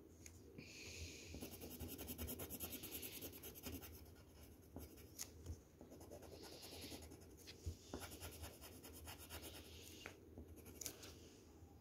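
Faint scratching of a drawing tool on paper, in stretches of strokes with brief pauses, as lines are drawn.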